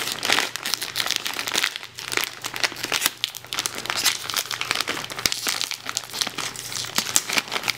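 Foil-lined plastic snack bag crinkling and crackling as hands pull it open at its sealed top, an irregular stream of sharp crackles throughout.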